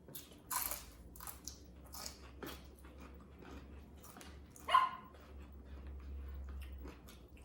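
Dog barking: one short bark about half a second in and a louder, sharper one near five seconds.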